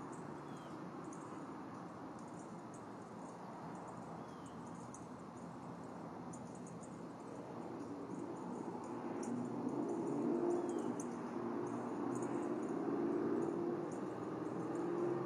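Outdoor ambience from the nest-cam microphone: a steady low hum and noise that grows louder in the second half, with faint high insect clicking throughout and three faint, short bird chirps.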